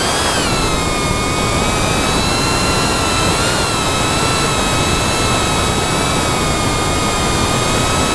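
FPV quadcopter's brushless motors and propellers whining in flight: a steady high-pitched buzz that swells briefly in pitch right at the start, then holds nearly level.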